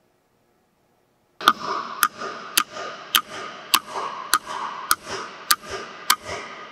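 A steady series of nine sharp taps, a little under two a second, starting about a second and a half in, as the sheet-steel cooling fan is knocked onto the shaft end of an electric motor. Each strike leaves the fan ringing.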